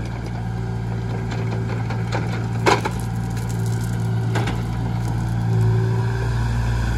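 Mini excavator's diesel engine running steadily while the bucket works brush and tree branches into a dump trailer. Wood snaps and cracks several times, loudest a little under three seconds in and again about four and a half seconds in.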